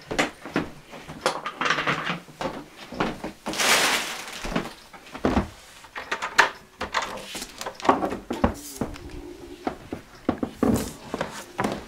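Irregular knocks, clunks and rustles of things being handled and moved about, with a longer rustle about four seconds in.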